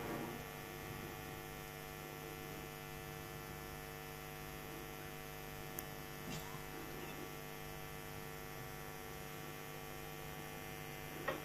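Faint, steady electrical mains hum with a stack of overtones. It is broken only by a short click about six seconds in and a brief sound near the end.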